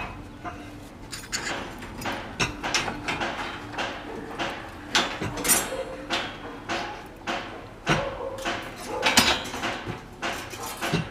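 Tie wire being twisted around steel rebar crossings: irregular metallic clicks and scrapes of wire and tool against the bars.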